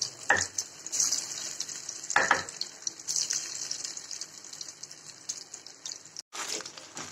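Marinated chicken pieces deep-frying in hot oil in a steel kadai: a steady high sizzle of bubbling oil, with a few louder crackles in the first couple of seconds.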